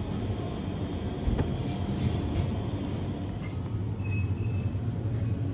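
A steady low hum and rumble with music underneath, a few light clicks and rustles, and a short high beep about four seconds in.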